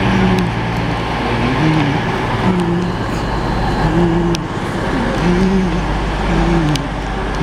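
CrossCountry Voyager diesel multiple unit (Class 220/221) moving past a platform, its underfloor diesel engines giving a steady low drone, with a few sharp clicks scattered through it.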